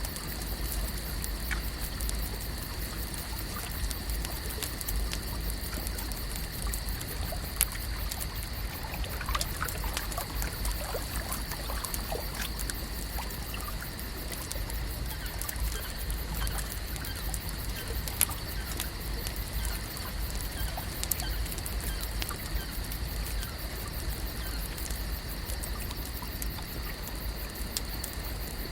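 Lake ambience: water trickling and lapping, with scattered small clicks and drips over a steady high-pitched hum and a low rumble.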